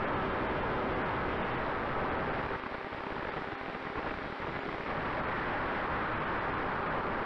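Wind rushing over the onboard camera of an electric E-flite Air Tractor RC plane in flight, with the brushless motor and propeller making a faint steady tone underneath. The rush eases for a couple of seconds midway.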